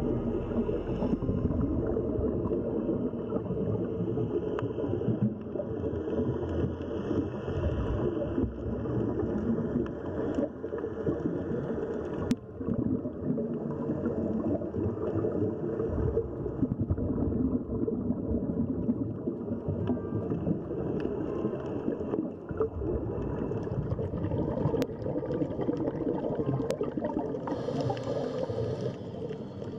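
Muffled underwater sound picked up by an action camera in its waterproof housing: a dense low rumble and gurgle of water, with a few faint clicks.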